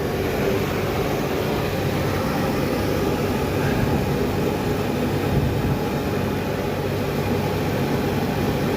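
Shot-blasting cabinet's extractor fan running steadily just after being switched on, a continuous rushing drone with a low steady hum beneath it.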